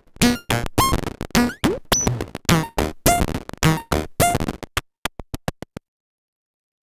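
Moog DFAM analog percussion synthesizer playing a sequenced pattern of short electronic drum hits, some pitched and one sweeping upward. Near the end the hits turn into faster, quieter clicks, then stop about six seconds in.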